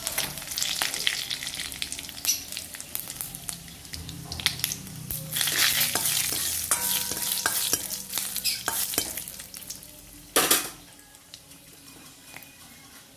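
Whole spices (dried red chillies, cumin seeds, bay leaves) crackling and sizzling in hot oil in a metal kadhai for a tadka, with a spoon stirring and scraping against the pan. A sharp knock about ten seconds in, after which the sizzle is quieter.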